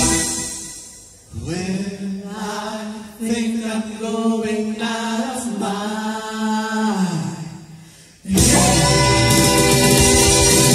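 Two women singing a slow harmony passage into microphones, holding long notes over a quiet accompaniment. About eight seconds in, fuller and much louder music comes in suddenly.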